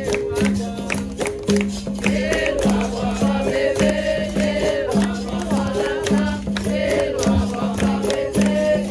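Capoeira roda music: a berimbau repeats a rhythm on two alternating notes, with a shaken rattle, sharp hand-percussion strikes and a group of voices singing.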